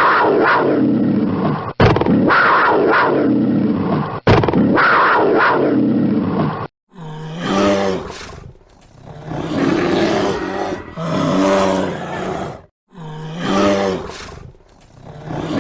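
Big cat roaring and growling: several clips spliced together, the first part a run of continuous roars with abrupt cuts. After about seven seconds come separate growling roars that swell and fade every few seconds.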